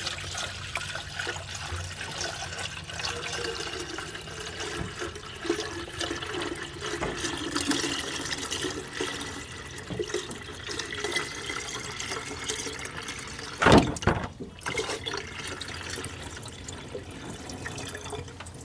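Water poured from a jug into the plastic coolant reservoir of a 2006 Ford F-150, filling the empty cooling system to find a leak: a steady splashing pour whose faint tone rises gently as it goes. A short thump about fourteen seconds in.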